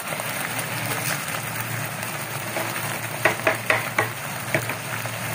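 Chicken pieces in a soy sauce, vinegar and garlic marinade sizzling steadily in a nonstick frying pan as they sauté, with a few sharp clicks about three to four and a half seconds in.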